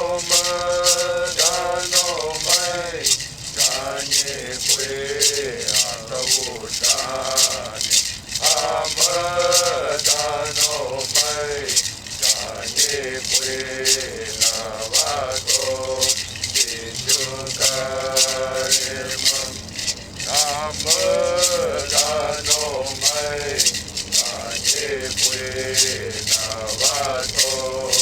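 A single voice singing a traditional chant-like song to a hand rattle shaken in a steady beat of about two strokes a second.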